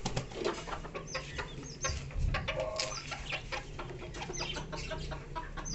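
Bantam chickens clucking softly while pecking at maggots on concrete, their beaks tapping against the ground in many quick sharp clicks.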